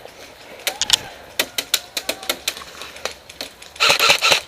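Airsoft guns firing: about a dozen separate sharp shots over the first three seconds, then a rapid full-auto burst near the end.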